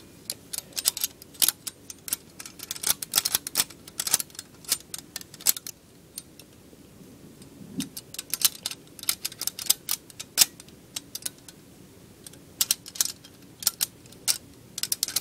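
Brass spike of a metal cube maze puzzle clicking and rattling against the maze walls as it is worked through the maze: quick, irregular clicks with a lull of a couple of seconds midway.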